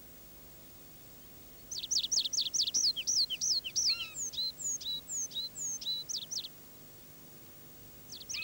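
Tree pipit singing: a phrase of rapid repeated high notes that slows into longer slurred notes, starting about two seconds in and lasting some five seconds. A second phrase begins near the end.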